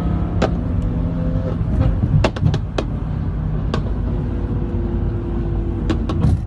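A BMW M car's engine running steadily, with sharp exhaust pops and crackles scattered through it at irregular intervals.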